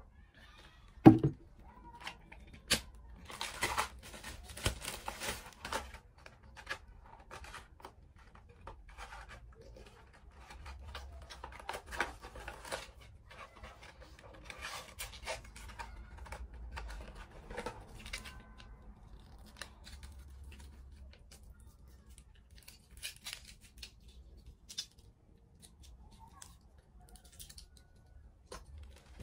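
A single loud knock about a second in, then a cardboard medicine box and blister pack being handled: a run of short clicks, crinkling and tearing as the packaging is opened and pills are taken out, busiest in the first half and sparser later.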